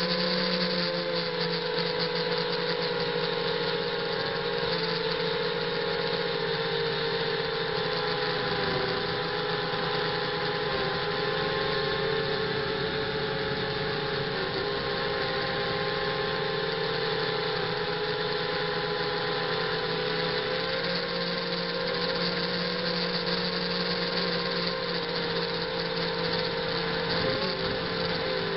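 Brushless motors and propellers of a ZMR 250 quadcopter running steadily in flight, picked up close by its onboard camera. The pitch wavers a little as the throttle changes, over a steady hiss.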